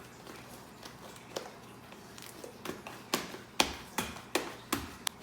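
Fluffy slime being squeezed and worked by hand, giving off sharp popping clicks as trapped air bubbles burst: a few scattered pops at first, then a quick string of louder pops in the second half.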